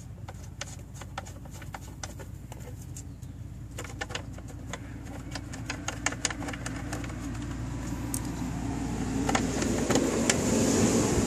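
Hard plastic cover of a slide gate opener's control box being handled and pushed back into place: scattered light clicks and taps. Under them a steady low rumble grows louder near the end.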